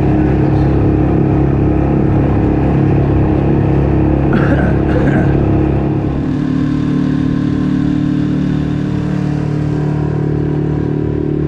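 Small boat's petrol outboard motor running steadily under way; about six seconds in its note drops lower and a little quieter.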